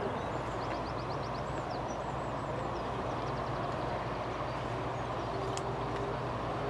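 Airbus A330-200's jet engines at idle as the airliner taxis, a steady rumble with a low hum.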